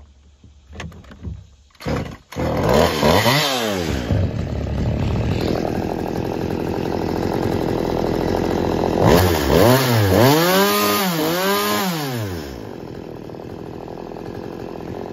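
Stihl MS 192 TC top-handle two-stroke chainsaw starting about two seconds in, after a few short knocks. It revs up and down right after catching, then runs at a steady fast idle. Three quick rise-and-fall throttle revs come around ten seconds in, and it then drops to a quieter, steady idle.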